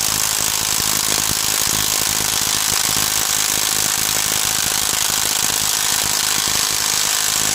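Cordless brushless 1/2-inch drive impact wrench hammering steadily on a cylinder head bolt through an Allen-head socket, the bolt not breaking loose.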